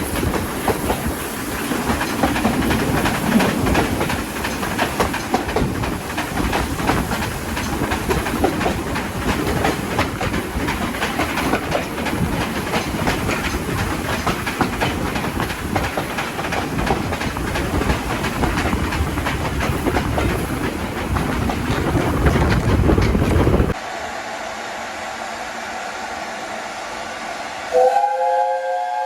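Steam train running past close by, its wheels clattering over the rail joints amid loud steady noise. The noise cuts off abruptly and gives way to a quieter hiss, and near the end a steam locomotive whistle sounds with several tones at once.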